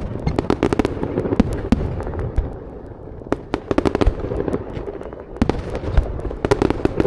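Fireworks display: rapid crackling and popping of bursting shells in three dense volleys, one at the start, one about three and a half seconds in and one near the end, over a continuous low rumble.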